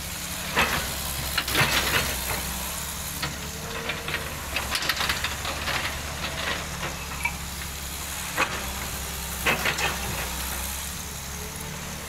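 Cat hydraulic excavator's diesel engine running steadily while its steel bucket scrapes and drags through crushed gravel, with crunches and clanks about a second in, around five seconds, and again near nine to ten seconds.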